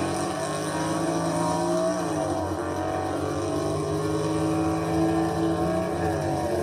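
A car engine running steadily, its pitch shifting about two seconds in and again near the end as the revs change.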